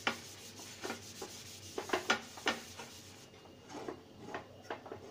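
Folded tissue paper wiping oil across a hot nonstick tawa: a series of short, soft rubbing strokes that thin out after about three seconds.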